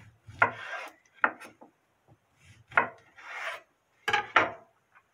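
Chef's knife slicing through a whole unpeeled mandarin, the blade rasping through the peel and knocking onto a wooden cutting board in several separate strokes.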